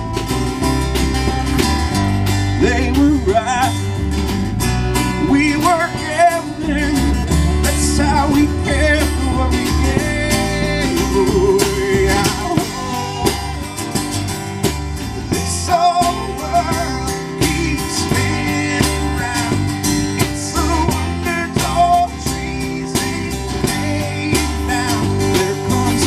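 A live band playing: resonator guitar, acoustic guitar, upright bass and drum kit.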